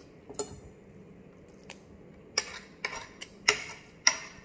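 Metal spoon and fork clinking and scraping against a plate while eating: about seven sharp, irregular clinks, the loudest in the second half.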